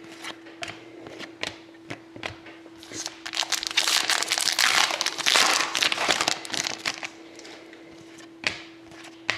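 Hockey card pack wrapper being torn open and crinkled for about three seconds in the middle, between scattered light clicks and snaps of cards being handled, with a faint steady hum underneath.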